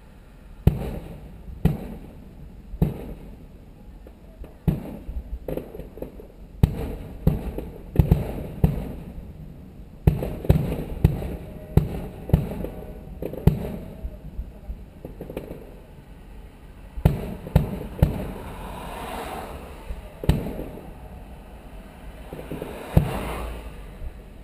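Aerial firework shells bursting: well over a dozen sharp booms at irregular spacing, some in quick clusters, with crackling between them.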